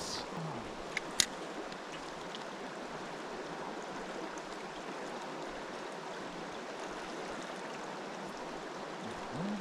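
Mountain stream water rushing steadily, with a sharp click about a second in.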